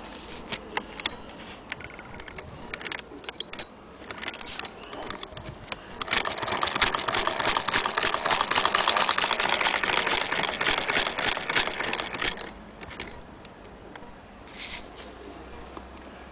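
Antique Bradbury hand-crank fiddle-base sewing machine: scattered clicks, then about six seconds of fast, dense mechanical clatter as it runs and stitches, stopping abruptly.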